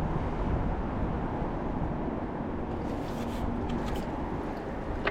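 Steady low rumble of wind buffeting the microphone outdoors, with a few faint clicks about three to four seconds in.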